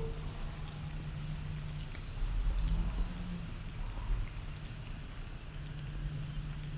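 City street traffic: a steady low rumble of passing vehicles, swelling louder for a second or two about two seconds in.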